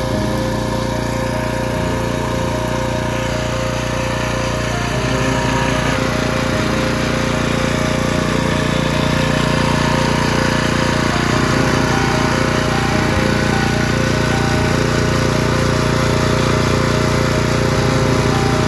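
SSh-2 rail grinding machine running steadily: a small engine-driven grinder, slightly louder from about five seconds in.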